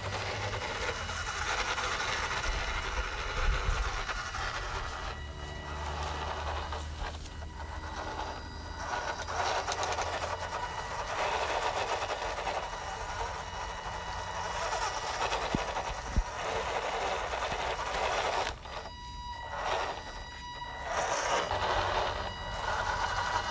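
Radio-controlled miniature truck's small electric motor and gears whirring steadily as it drives over a rough gravel-and-dirt track, with two short drops in the sound near the end.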